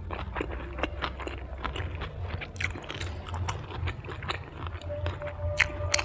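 A person chewing a mouthful of deep-fried kimbap, with wet mouth sounds and many short, crisp clicks.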